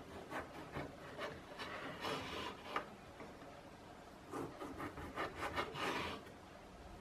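Fully serrated Cold Steel Hold Out pocket knife sawing back and forth through a tomato. It makes two runs of short scraping strokes, the second starting about four seconds in.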